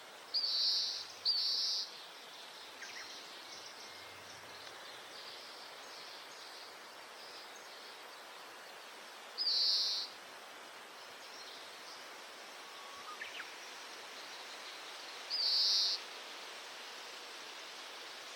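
Oriental greenfinch calling: four short, high, buzzy notes over steady outdoor background noise. Two come close together at the start, then single notes about ten and sixteen seconds in.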